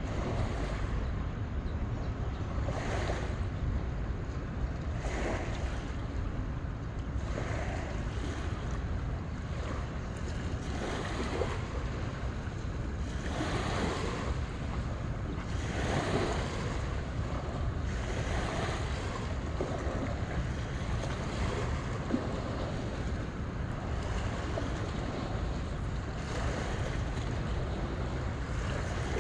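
Small waves washing onto a sandy shore, a soft swell of surf about every two seconds, over a steady rumble of wind on the microphone.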